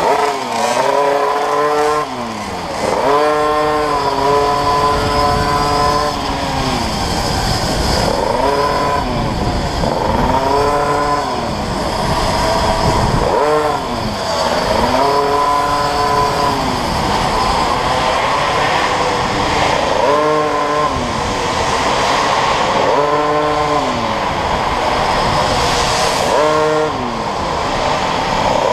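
Go-kart engine revving up and falling back again and again as the kart accelerates along the straights and lifts off for the corners.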